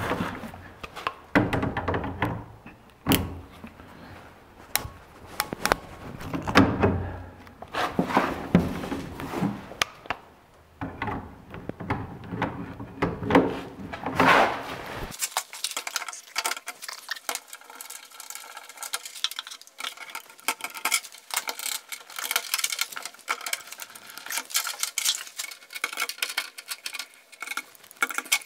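Hand work on PEX water lines at a plastic manifold: knocks, clicks and rustling as the pipes are pushed into their fittings and a ratcheting PEX crimp tool is closed on the stainless crimp rings. About halfway through, the sound turns thinner, a quick run of light clicks.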